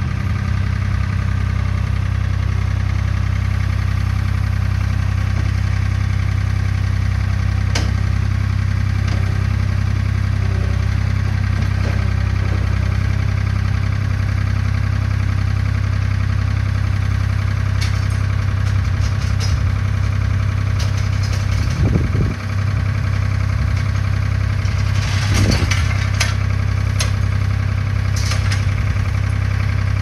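An engine idling steadily, with a brief dip in level about two-thirds of the way through and a few light clinks near the end.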